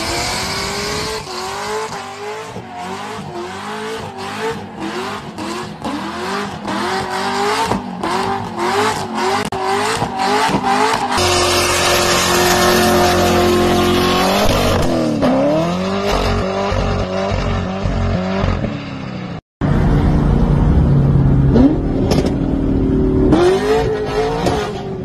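Corvette V8 engines in a series of short clips: first revved hard over and over, more than a dozen quick rising revs, during a burnout with tyre squeal; about halfway it changes to the engine held at high revs while the rear tyres spin and smoke; near the end a Corvette accelerating hard on a highway.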